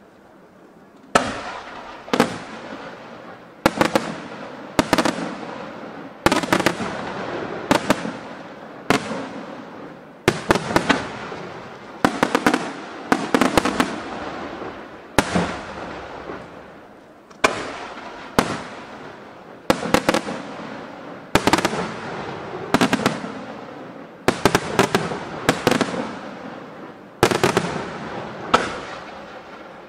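Aerial firework shells bursting in quick succession: a sharp bang roughly every second, starting about a second in, many coming as quick doubles and triples, each trailing off before the next.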